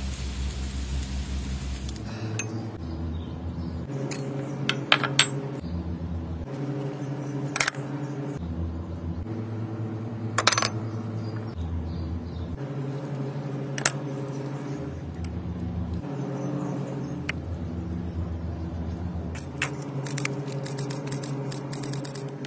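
Grilling chicken wings sizzling over hot charcoal for about the first two seconds. After that, background music with a slow, steady bass line, with a few sharp clinks of kitchen handling scattered through it.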